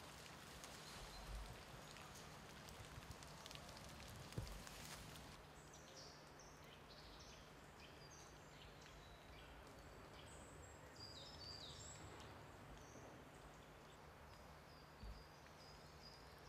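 Near-silent outdoor ambience: a faint hiss with scattered small ticks and a soft thump about four seconds in. From about five seconds in, faint high chirping of small birds comes through, over a faint steady low hum.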